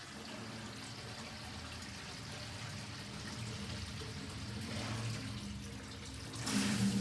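Water trickling and pouring back down into a sump pit after the pump has shut off. Near the end the sump pump motor starts again with a steady hum and a rush of water. The water draining back refills the pit, so the pump restarts every few seconds.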